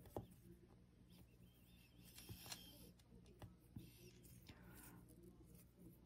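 Near silence: faint steady room hum with a few soft clicks and rubs from fingers pinching and turning a block of polymer clay.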